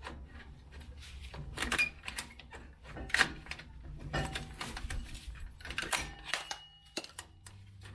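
Irregular metallic clicks and clinks of hand tools against drum-brake hardware, with a brief faint ring near six seconds, as the brake spring and parking brake cable are worked free on a truck's rear drum brake.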